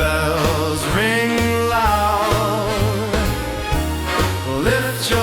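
1940s-style Christmas song: a sung voice with vibrato over a band with steady, evenly paced bass notes.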